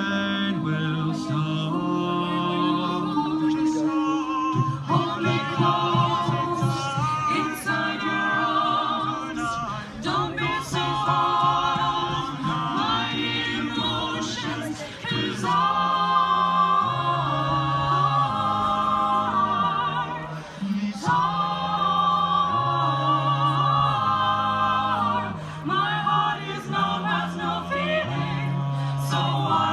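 A choir singing unaccompanied, in held chords that change every second or two, with a low bass part moving in steps beneath.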